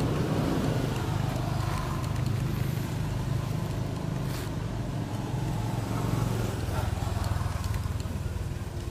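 A steady low engine hum, easing slightly near the end.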